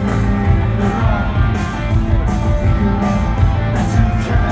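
Rock band playing live over a festival PA, heard from within the crowd: electric guitars over drums with a steady beat.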